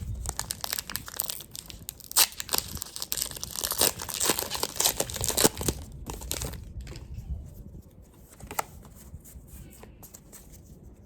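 A foil Pokémon booster pack wrapper crinkling and tearing as it is handled and opened, dense and crackly for the first six seconds or so, then settling into quieter scattered clicks of handling.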